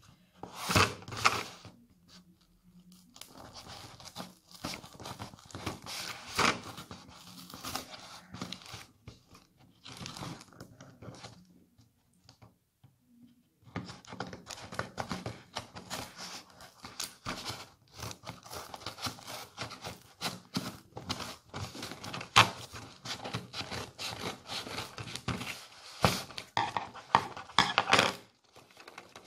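Scissors cutting into a taped cardboard box, with cardboard and tape tearing and packing paper crinkling as the box is pried open. There are many short clicks and scrapes, with a quiet pause of a couple of seconds about halfway through.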